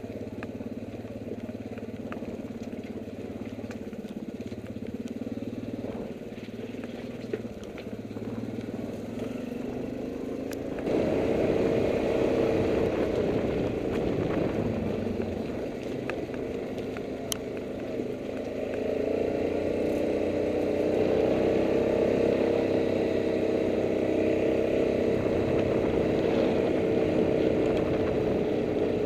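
ATV engine running while riding a rough, rocky trail, getting louder and higher in pitch about a third of the way in, easing back, then picking up again and holding steady. A few sharp knocks sound over it.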